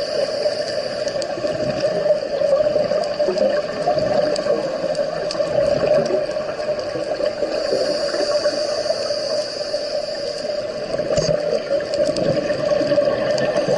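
Underwater ambience as picked up by a camera in its housing during a scuba dive: a steady water hiss and hum with scattered faint clicks.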